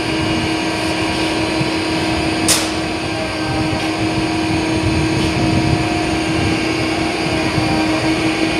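Steady mechanical hum of cooling fans and running machinery, with one constant low tone throughout, and a single sharp click about two and a half seconds in.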